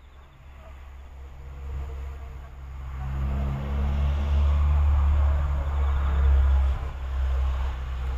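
Low rumble of a motor vehicle's engine, growing louder over the first three seconds and then running steadily.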